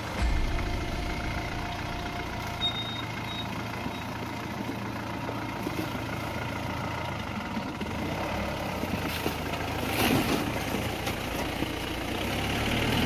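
Mahindra Bolero's diesel engine running at low revs as the vehicle crawls over a rough, rocky off-road track, with a few short knocks and a slightly louder stretch about ten seconds in.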